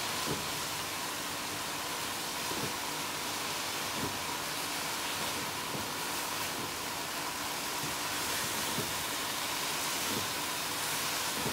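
Mashed vegetables frying in a nonstick karahi with a steady, even sizzle as their water cooks off, and a silicone spatula scraping and pushing through the mash every second or two.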